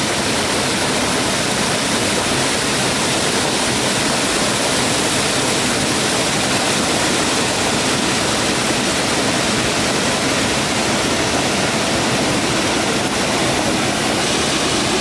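Steady, loud rush of flowing water that keeps going without a break.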